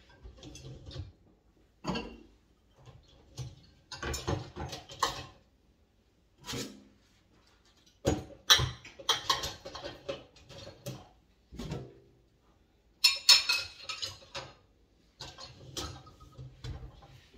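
Kitchen clatter: dishes, pots and utensils being handled and set down, in bursts of clinks and knocks with short pauses between them.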